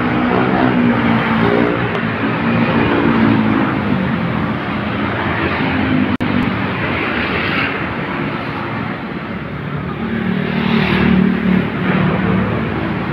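Busy road traffic passing close by: motorcycle and other vehicle engines. One engine is loudest in the first few seconds and another about ten seconds in.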